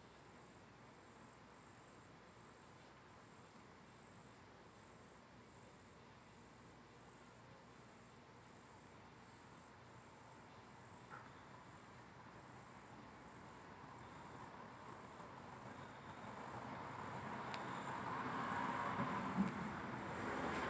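Crickets chirping, a faint high pulsing about two to three times a second. Over the last several seconds a broad rushing noise grows steadily louder beneath them.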